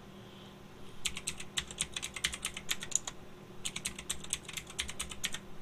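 Typing on a computer keyboard: two quick runs of keystrokes with a short pause between them, the first starting about a second in.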